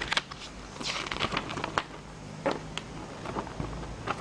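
A folded paper quick start guide being handled and unfolded: irregular crackling rustles of paper, with a few sharper crinkles around one and two seconds in.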